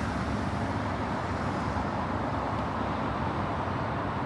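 Steady road traffic noise, an even rumble and hiss without distinct events.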